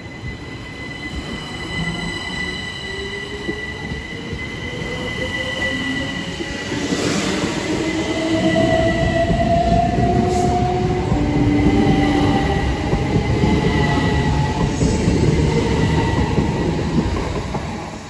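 Southeastern Electrostar electric multiple unit pulling away from a station stop, its traction motors whining with a pitch that rises steadily as the train gathers speed. Wheel and running noise grow louder as the carriages pass close by, then fade near the end as the train draws away.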